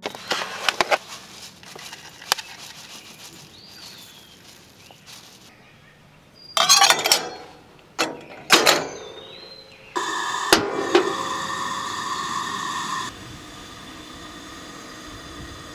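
Stainless steel camp percolator being handled and set up: metal clicks and clinks, then two loud rushes of noise about two seconds apart. After that comes a steady hiss with a hum for about three seconds, which cuts off suddenly. A few short chirps sound in the background now and then.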